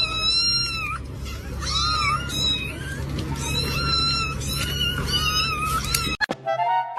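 A cat meowing repeatedly in high-pitched calls, four drawn-out calls of about a second each. Near the end it cuts off suddenly and short musical tones take over.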